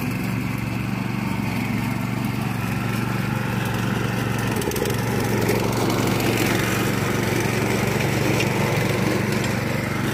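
RI 740 power weeder's 9 HP single-cylinder, four-stroke, air-cooled petrol engine running steadily while weeding, a little louder about halfway through.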